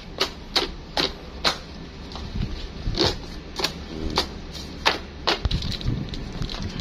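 Irregular sharp clicks and light knocks, about a dozen over several seconds, from plastic-string ties being cut off a stack of plastic crates and the crates being handled.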